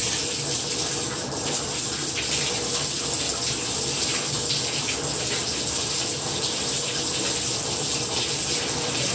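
Bathtub faucet running steadily, water pouring from it to fill a small heat exchanger.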